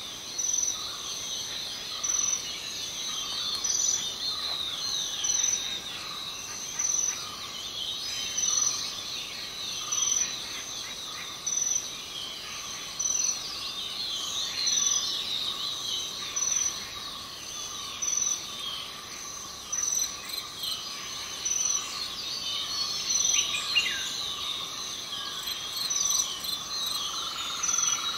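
Forest ambience of crickets and birds: a high insect trill swells about every second and a half over a steady insect hum, with many bird chirps and calls scattered through.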